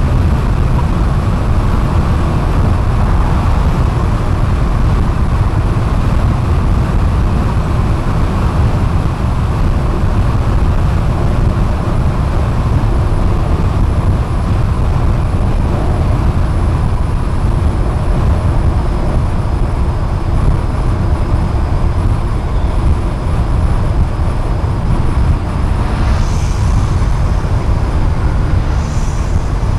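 A car cruising at highway speed: a steady low rumble of road and tyre noise.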